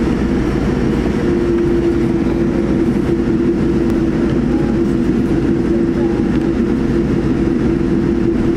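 Boeing 787-9's GEnx engines and wheels heard inside the cabin on the take-off roll: a loud, steady rumble, with a steady tone setting in about a second in and holding.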